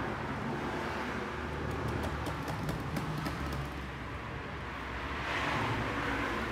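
A steady low rumble of vehicle or traffic noise, with a few faint light clicks in the middle and a short swell of hiss near the end.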